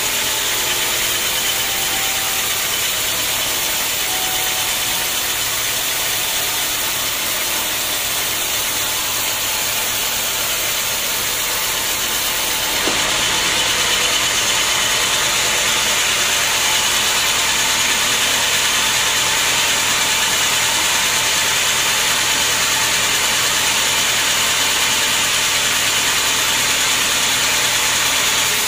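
Vertical band sawmill running steadily, its blade sawing through a squared teak log. The noise steps up slightly about halfway through.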